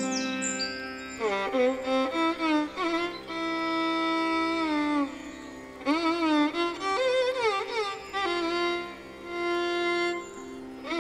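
Background music: an Indian classical-style instrumental melody with sliding, ornamented notes and some long held notes, over a steady drone.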